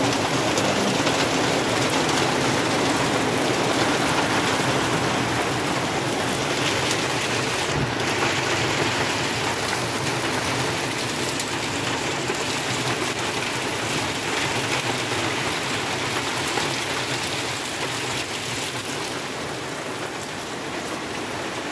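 Heavy rain pouring steadily onto the ground, puddles and trees, a constant hiss that eases slightly toward the end.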